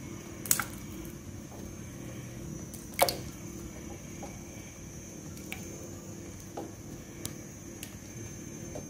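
Raw chicken pieces going into warm water in a stainless-steel pot: soft splashes and knocks against the pot, two louder ones about half a second and three seconds in, then a few small ticks, over a faint steady hum.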